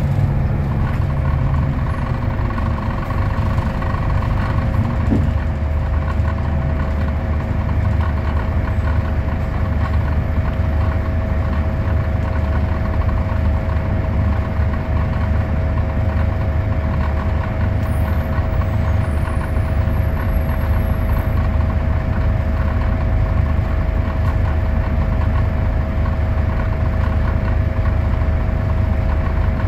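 Scania DC09 five-cylinder diesel of a Scania K320UA articulated bus idling, heard from inside the passenger cabin: a steady low rumble with a constant whine over it.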